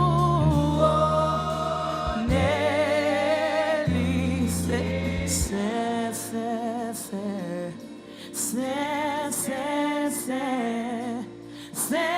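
Gospel worship singing: a woman's lead voice with vibrato and other singers, over sustained low keyboard or bass chords. The low chords drop out a little past halfway, leaving the voices over a regular light high percussive beat.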